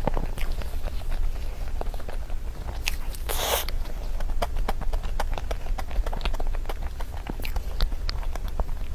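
Close-miked eating of chocolate desserts: a run of small wet mouth clicks and smacks from chewing, with one louder, longer burst of noise about three and a half seconds in. A steady low hum sits underneath.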